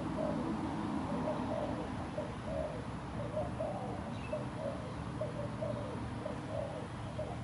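Spotted doves cooing: a steady run of short, repeated coos, over a steady low rumble.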